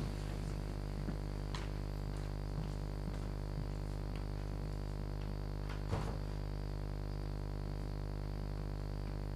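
Steady electrical mains hum in the recording, with two faint knocks, about a second and a half in and again about six seconds in.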